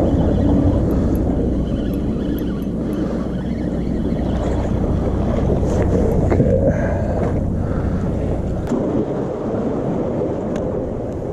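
Sea surf washing among breakwater tetrapods, with wind noise on the microphone, a steady rush; a single sharp click near the end.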